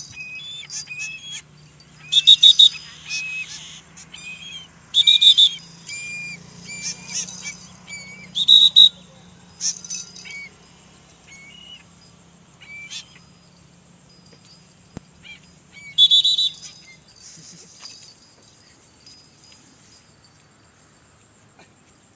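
A series of short, high-pitched whistled calls, some sliding down in pitch, coming in loud clusters about two, five, eight and a half and sixteen seconds in with quieter calls between, and dying away after about eighteen seconds.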